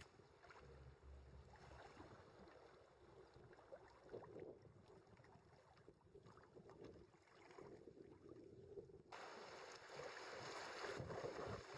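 Faint water noise from a kayak moving down a river, with soft, irregular splashes. About nine seconds in it changes abruptly to a louder, steady rush of water as the kayak runs white water.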